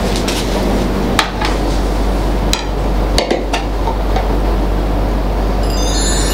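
A few sharp clinks and knocks of a pan and a glass bowl against a ceramic plate as food is set down and the bowl is lifted, over a steady hiss and low hum. A bright chime starts near the end.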